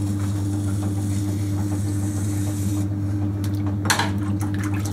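Electric potter's wheel spinning with a steady low mains-type hum. A faint hiss fills the first few seconds, and a single sharp click comes about four seconds in.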